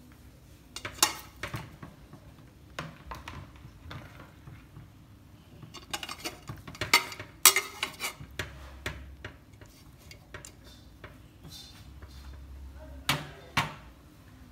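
Metal utensil clinking and knocking against an aluminium pot as whole fried pigeons are set into it, in scattered sharp knocks, busiest about six to eight seconds in and again near the end.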